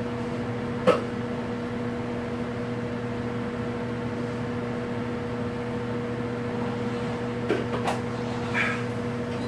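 Over-the-range microwave oven running with a steady hum while it heats a bowl of chili. A single knock comes about a second in, and a few faint clatters near the end.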